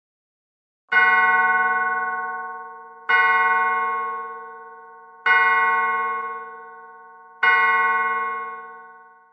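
A bell struck four times at an even pace about two seconds apart, each stroke ringing out with several tones and fading slowly before the next.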